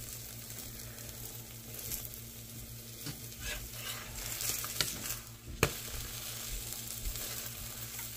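Oil sizzling steadily under a potato-and-vegetable paratha frying on a nonstick pan. A metal spatula scrapes and clacks against the pan as the paratha is lifted and flipped, with the sharpest clack about five and a half seconds in.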